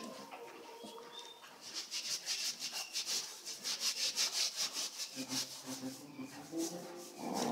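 A dog and a cat play-fighting: a fast, rhythmic scuffling and rubbing of fur and paws, about six strokes a second, starting about two seconds in. Near the end a low, drawn-out animal groan joins it.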